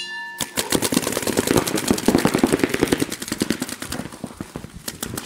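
A start buzzer sounds briefly and cuts off, signalling the start of the point; then paintball markers fire in fast overlapping streams of shots, many a second.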